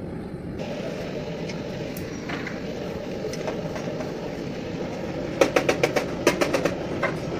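A steady background rumble, with a quick run of about ten sharp knocks a little past halfway.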